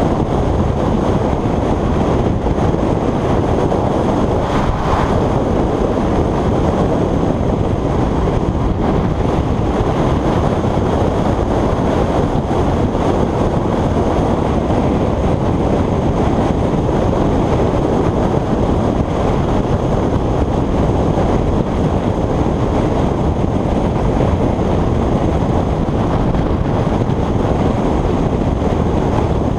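Wind buffeting the microphone of a motorcycle-mounted action camera at motorway speed: a loud, steady, low rushing noise with the bike's engine and tyre noise buried in it.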